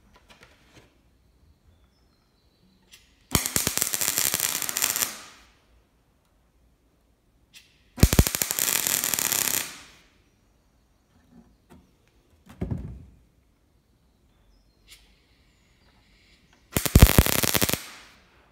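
Electric arc welder crackling through three short tack welds on a steel ammo box, fixing its handles so they stop rattling. The first two welds last about two seconds each and the last about a second, with quiet between them.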